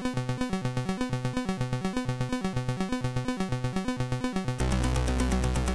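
Commodore 64 SID chip music: fast, evenly pulsed synthesizer notes, about nine a second, over a repeating bass figure. About four and a half seconds in the tune changes to a fuller section with a long held low bass note.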